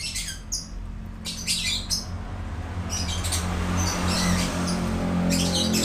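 A bird chirping in short repeated bursts of high calls, over a steady low hum.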